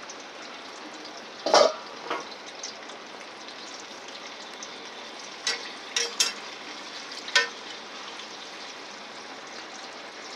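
Potato fries frying in hot canola oil in a pot: a steady sizzle, broken by about six short sharp clicks and knocks, the loudest about a second and a half in.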